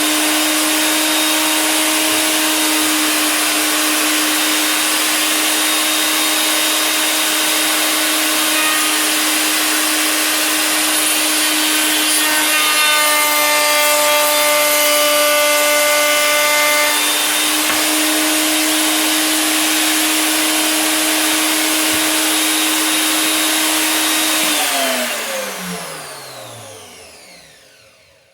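Harbor Freight 1 3/4 HP router in a router table running at full speed with a steady high whine. Partway through, a roundover bit cuts along a wood edge. The router is then switched off and winds down, its whine falling in pitch over about three seconds.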